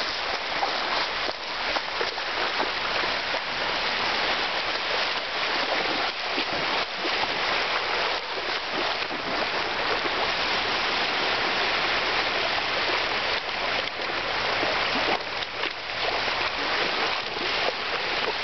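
Shallow sea surf washing onto a sandy beach, a steady rushing hiss, with a dog splashing as it wades through the water.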